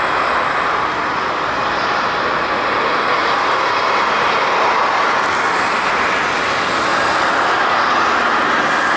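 Airbus A350-1000's Rolls-Royce Trent XWB turbofan engines running with a steady jet noise as the airliner rolls along the runway.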